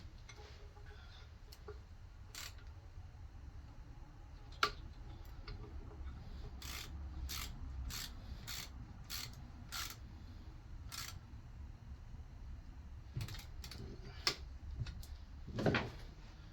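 Metal clicks and clinks of a tool tightening the jaw-plate screws back onto a cast-iron Columbian bench vise, with a run of evenly spaced clicks about twice a second in the middle and one sharper knock before it.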